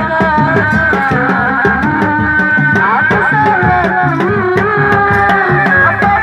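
Sundanese reak ensemble music. Dogdog drums and other percussion beat a fast, steady rhythm under a high, wavering melody line that bends between notes.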